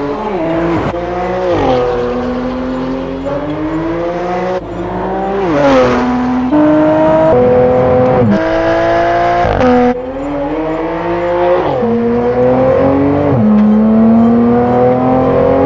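Porsche 992 Turbo's twin-turbo flat-six breathing through an Inconel race exhaust with decat pipes and equal-length headers, accelerating hard. Its pitch climbs through each gear and drops sharply at each of several quick upshifts.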